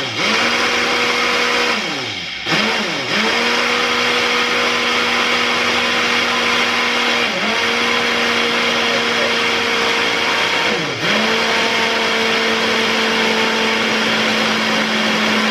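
Personal bullet-style blender running as its cup is pressed down on the motor base, blending a protein smoothie. The motor hums at a steady high pitch, dropping sharply and picking up again a few times, around 2, 3, 7 and 11 seconds in.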